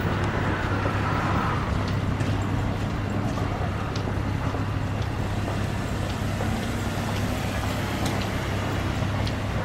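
Steady road traffic noise with a low engine rumble underneath, and a few light clicks.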